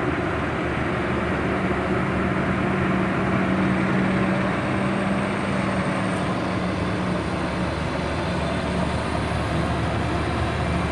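Excavator's diesel engine running steadily under load, with a constant low hum.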